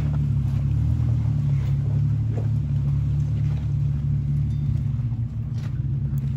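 Off-road vehicle engine running steadily at low revs while crawling a rocky trail: a deep, even rumble, with a few faint ticks over it.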